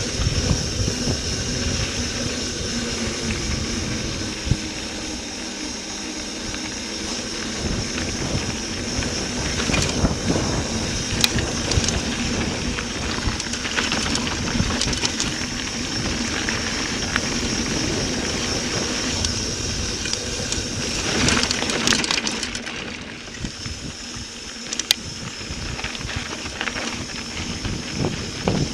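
Mountain bike riding fast down a dirt trail: a steady rush of wind and knobby-tyre noise over dirt and loose rock, with sharp knocks and rattles from the bike over bumps. It eases briefly late on as the bike slows.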